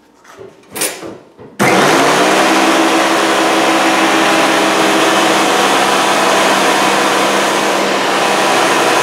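Thickness planer switched on about a second and a half in, its motor coming up to speed almost at once and then running loud and steady as a rough walnut board is fed through on a light first pass. A few faint knocks of the board being handled come before it.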